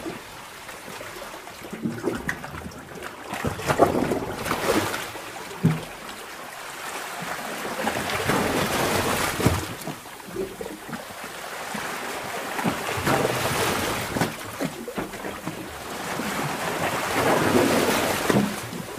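Underwater sea-cave ambience: surges of rushing, bubbling seawater that swell and ebb every four to five seconds.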